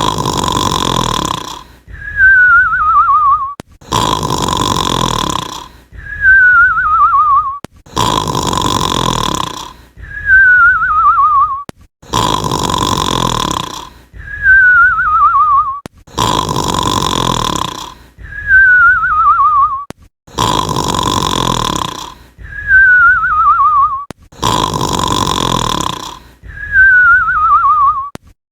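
Cartoon-style snoring sound effect on a loop: a loud rasping snore on the in-breath, then a wavering whistle that falls in pitch on the out-breath. The pair repeats identically every four seconds, seven times over.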